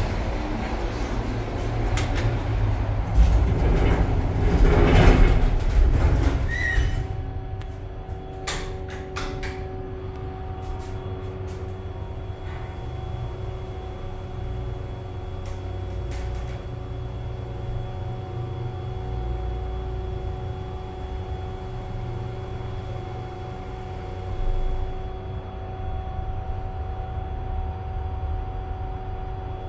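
Schindler hydraulic elevator ascending. After several seconds of louder, mixed noise, the pump motor settles into a steady hum with a few clicks early in the ride.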